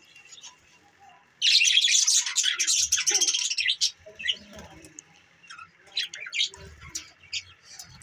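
A flock of budgerigars chirping. After a quiet first second or so, a loud burst of rapid, overlapping high chirps lasts about two seconds, then thins out to scattered single chirps.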